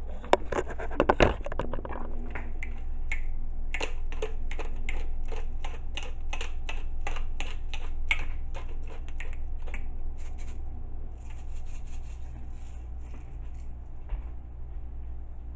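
Hand-twisted pepper grinder grinding pepper: a quick run of scratchy crunching clicks, about four a second, that stops about eleven seconds in. A low steady hum runs underneath.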